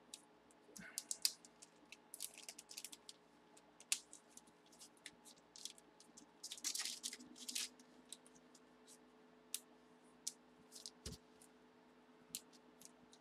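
Faint scattered clicks, crinkles and scratches of a trading card and its plastic and paper wrapping being handled and unwrapped by hand. A faint steady hum comes in about halfway through.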